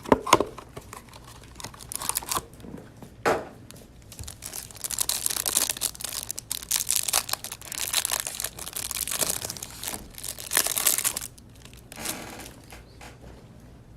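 A trading-card hanger box being torn open and its plastic wrapping crinkled and ripped. A few sharp snaps come first, then a long stretch of crinkling in the middle that stops about eleven seconds in.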